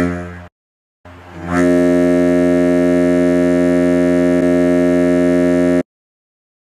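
Ship's whistle sounding in a low, steady horn tone: the tail of a short blast dies away, then about a second in comes one long blast of nearly five seconds that cuts off sharply. Short blasts followed by a long one make up a ship's alarm signal.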